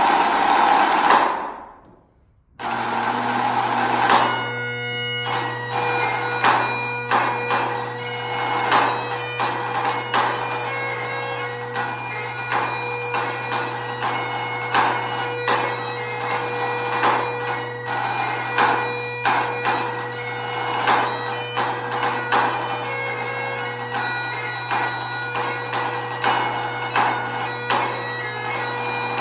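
A snare drum rolls briefly, then Highland bagpipe drones strike in a couple of seconds later and the chanter joins with a run of notes into a tune. A solo snare drum plays along throughout, its sharp strokes cutting across the steady drone of the pipes.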